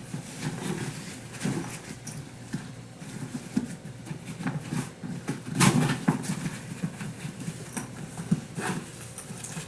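Eagle Creek ORV 36 suitcase being zipped with its waterproof zipper cover folded back: irregular zipper scrapes, nylon fabric rustling and light knocks of handling, a little sharper about halfway through. The covered zipper tends to stick.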